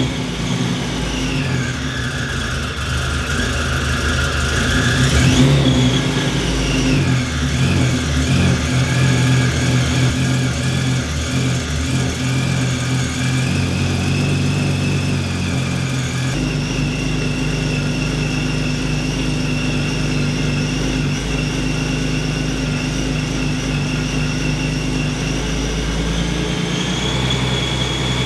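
Supercharged Infiniti Q50 3.7 L V6 (VQ37VHR) idling just after its first start on a freshly reassembled engine, running while its cooling system bleeds. Steady high-pitched tones sit over the engine note, and the idle drops a little about five to seven seconds in.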